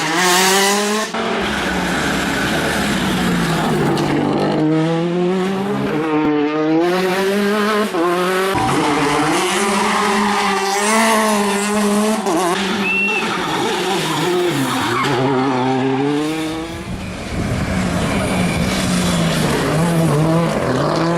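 Rally car engine heard from inside the car at full attack, its pitch repeatedly climbing under hard acceleration and dropping sharply at gear changes and braking, with tyre and road noise throughout.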